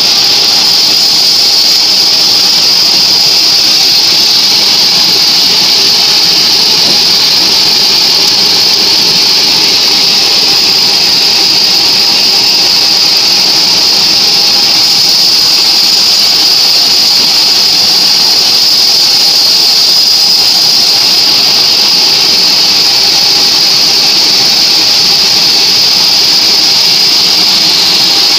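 Vertical band sawmill running and sawing a mahogany log: a loud, steady, high-pitched hiss and whine from the blade and machine.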